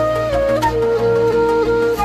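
Flute music: a slow melody of held notes stepping up and down, over a steady low hum.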